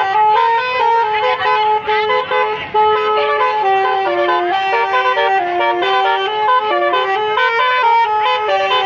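Bus basuri ('telolet') multi-tone horn playing a tune: a melody of held notes stepping up and down every few tenths of a second.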